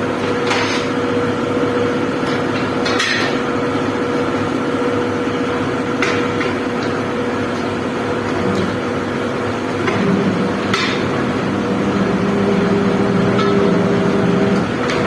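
Steady machine hum in a workshop, with a few sharp metallic knocks a few seconds apart. A second, lower hum joins about eight seconds in.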